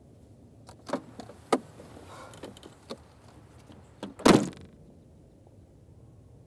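Car door heard from inside the car: a couple of sharp clicks and some rustling as the passenger gets out, then the door shut with a heavy thud about four seconds in, the loudest sound.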